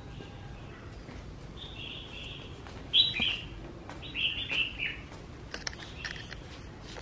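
Small birds chirping in short high bursts, some falling in pitch, the loudest about three seconds in, over a faint low background hum.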